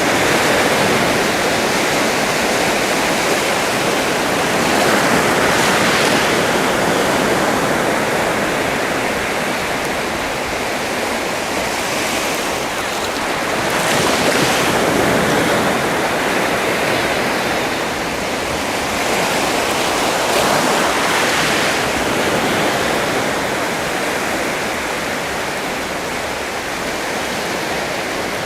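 Sea waves breaking and washing on a shore, a continuous surf with slow swells that rise and fall every several seconds.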